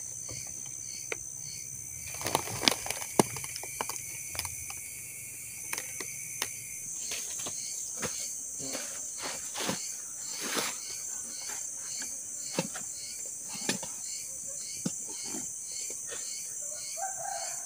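Forest insects chirring steadily and high, with scattered sharp clicks and light knocks: a small wood fire crackling in the first seconds, then a plate and spoon being handled and set down on a cloth.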